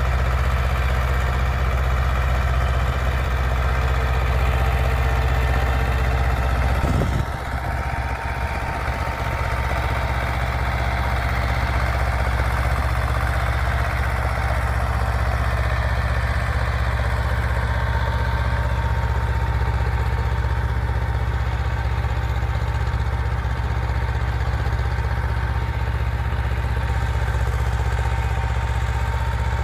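Swaraj 724 FE tractor's two-cylinder diesel engine running steadily under load while pulling a cultivator through the soil. The sound dips and shifts briefly about seven seconds in, then runs on steady.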